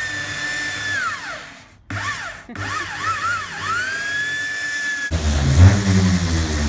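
Electric belt sander running on a wooden tabletop, a high steady whine that drops in pitch about a second in, then wavers up and down several times before settling high again. About five seconds in it gives way to an electric palm orbital sander with a lower, heavier hum.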